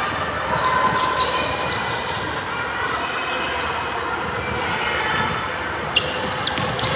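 Basketball bouncing on a gym floor during a game, with short sharp strikes over a steady echoing gym din and background voices.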